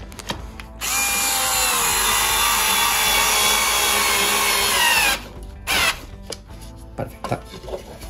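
Electric screwdriver driving a wood screw into a plywood tray frame in one run of about four seconds, its motor pitch sagging as the screw bites in and dropping as it seats. A short second burst follows about half a second later.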